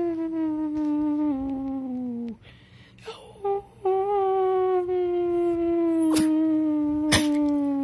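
Chihuahua howling: two long, steady howls that slowly fall in pitch, the second starting about four seconds in after a couple of short notes. Two sharp clicks come near the end.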